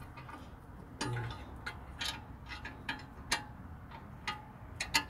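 Irregular sharp metallic clicks and clinks, about one every half second, of a 16 mm wrench working a brake caliper bracket bolt as it is tightened.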